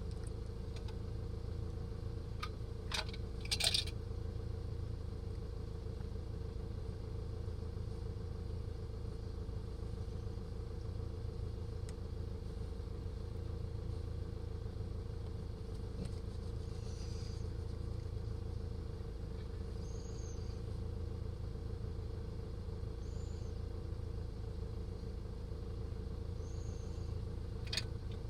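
An engine running steadily at an even pitch, with a few sharp clicks or knocks about three seconds in and another near the end.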